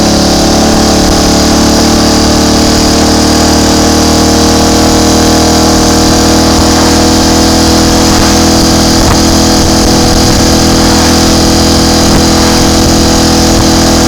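Triumph Tiger Cub's single-cylinder four-stroke engine running at a steady, even pitch as the motorcycle is ridden along.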